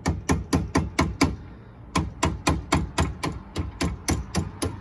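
Hammer blows driving a stuck bolt through under a car: a quick run of about six strikes, a short pause, then steady strikes about four a second.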